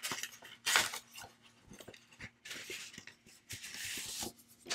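Paper rustling and sliding as a stack of scrapbook paper cards is pulled out of a white paper envelope, in several short bursts with light taps and clicks between them.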